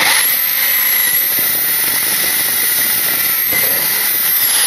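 Power drill running a hole saw through a plywood van floor: a loud, steady cutting noise under the motor's high whine. The whine rises just after a second in, dips about three and a half seconds in, and falls away as the drill winds down near the end.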